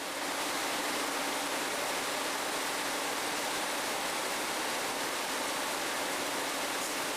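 Steady, even hiss with a faint low hum underneath, with no rhythm or clicks.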